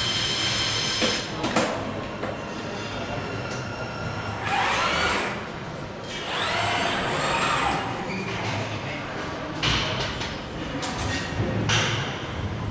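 Automated assembly line: an industrial robot arm's servo drives whine, rising and falling twice as the arm moves, over a steady machinery hum, with several short hissing bursts.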